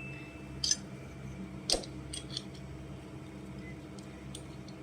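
Plastic magnetic building tiles being handled and pushed together, giving a few short sharp clicks, the loudest a little under two seconds in, over a steady low room hum.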